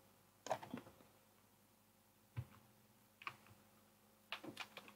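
Faint, irregular computer clicks from mouse buttons and keys, about half a dozen short sharp ones with a quick cluster near the end, over a low steady hum.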